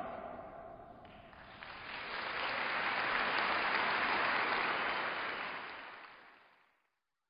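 Crowd of spectators applauding, swelling about two seconds in and dying away around six seconds in.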